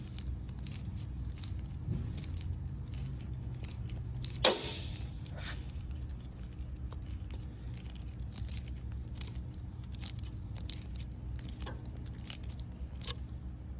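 A wrench turning an AN hose-end fitting down onto -6AN hose, giving irregular light metallic clicks and scraping, with one louder metal clank about four and a half seconds in.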